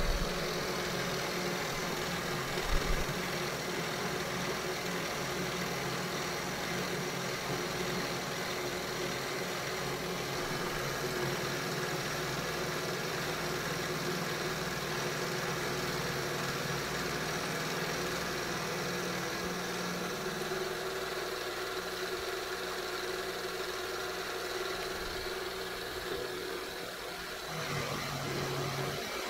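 Milling machine running with an end mill cutting a trough in a metal cylinder: a steady motor hum under the noise of the cut. The sound shifts about twenty seconds in.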